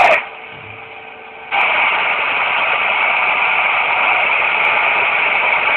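CB radio receiver hissing with static through its speaker: a faint hiss that jumps to a loud, steady rush about a second and a half in.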